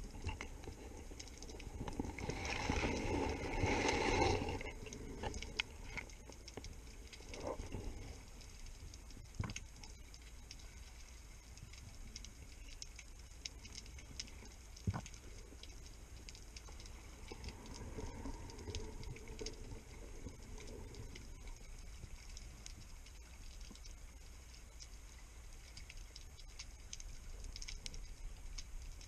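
Underwater ambience through a camera housing on a speargun: a steady faint crackle of tiny clicks over a low rumble. A louder rustling, scraping burst comes about two to four seconds in, with an odd sharp knock later.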